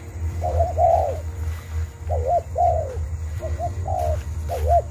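A decoy spotted dove (terkukur) cooing over and over, in short groups of arched coos, calling to lure wild doves to the traps.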